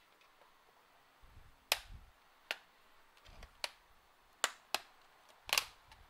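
Sharp plastic clicks and snaps, about six spread over a few seconds, with soft handling knocks, as the latches and bottom access cover of a Lenovo ThinkPad E550 laptop are worked loose and unclipped.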